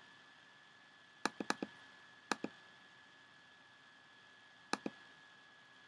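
Computer mouse clicking: a quick run of four clicks, then two more pairs of clicks, pressing the chat's Stop button to end the chat. A faint steady high whine runs underneath.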